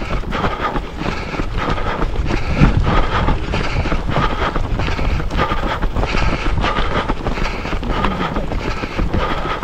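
Wind buffeting the microphone of a camera carried on a run, with a regular pulse a little more than once a second.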